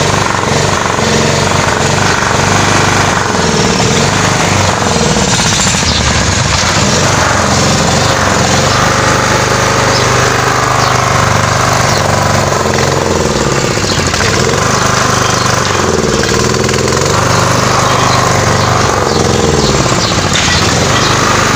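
Elemax 5 kVA portable generator with its Honda petrol engine running steadily after being restored and serviced, a loud, even engine note.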